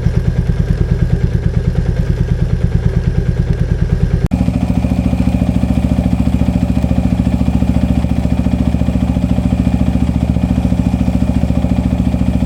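Royal Enfield Meteor 350's single-cylinder engine idling with an even, steady beat. Its sound changes abruptly about four seconds in.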